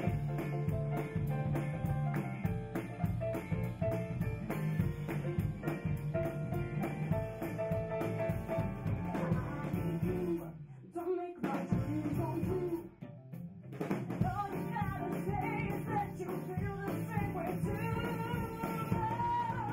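Live band playing a song on a Steinway grand piano, electric bass and drums with a steady beat. The music briefly drops away about halfway, then a woman's voice sings over the band.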